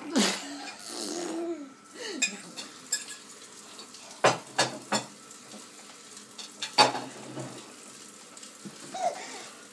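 A small child making silly voice noises into a saucer, then several sharp clinks of dishes and cutlery spread over a few seconds.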